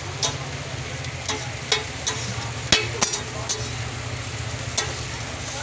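Metal spatula scraping and clacking on a flat steel griddle as egg-coated shami kebab patties are lifted and turned, over a steady frying sizzle. The clacks come irregularly, the loudest two close together near the middle, with a low steady hum underneath.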